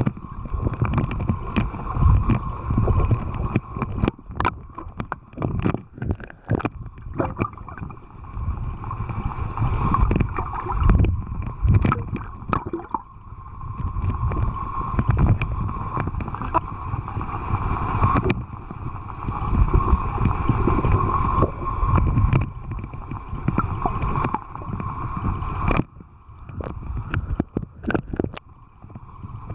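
Creek current heard through an underwater camera: a muffled low rumble and gurgle that swells and fades, with scattered sharp knocks and a steady high hum.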